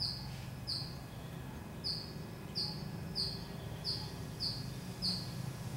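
A small bird calling: a series of short, high chirps, one roughly every two-thirds of a second with a brief pause about a second in, over a faint low steady room hum.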